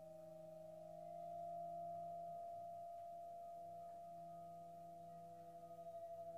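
Sustained ringing metallic tones from gamelan-style percussion: a low steady hum under a higher pair of close tones that beat against each other. The sound swells about a second and a half in and takes on a fast pulsing wobble near the end.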